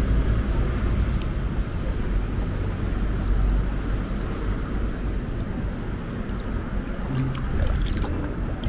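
Waterfront city street ambience: a steady low rumble of traffic and vehicle engines under a constant wash of outdoor noise.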